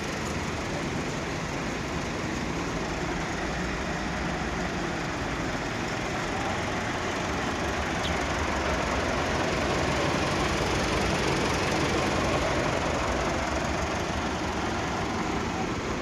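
An engine running steadily, a little louder around the middle.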